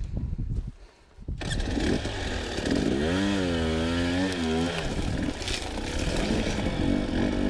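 Two-stroke dirt bike engine cuts in suddenly about a second and a half in after a moment of near quiet, then is revved, its pitch rising and falling.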